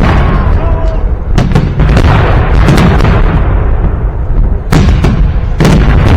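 Victory Day fireworks salute: a continuous deep rumble of booms, broken by sharp bursts of exploding shells, a pair about a second and a half in and two more near the end.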